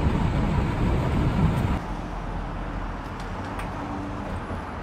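City street traffic: a steady rumble of engines and road noise, louder for the first couple of seconds, then cutting abruptly to a quieter traffic din with a few faint clicks.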